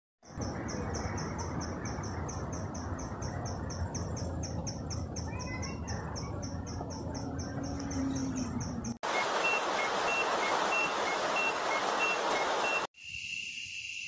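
Outdoor nature ambience: a steady rushing noise with insects chirping in a fast, even rhythm of about four chirps a second. About nine seconds in it cuts to a brighter hiss with a repeating two-note chirp. Near the end it cuts again to a quieter, steady insect trill.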